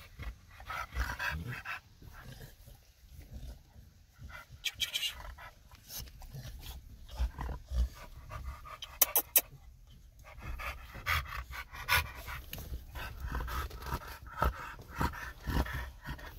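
American Bully dogs panting in a truck's back seat, in short irregular breaths, with a low rumble underneath. A few sharp clicks come about nine seconds in.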